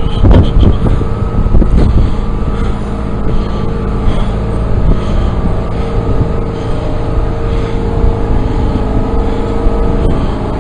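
A lorry's diesel engine idling steadily, with wind buffeting the microphone in the first two seconds.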